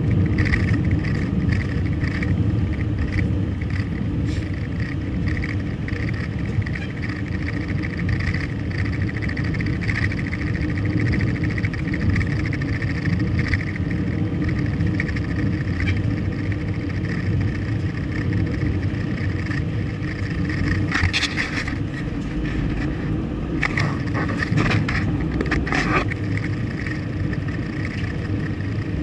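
Car driving steadily, with a constant low engine and road rumble. A cluster of sharp clatters comes in about two-thirds of the way through.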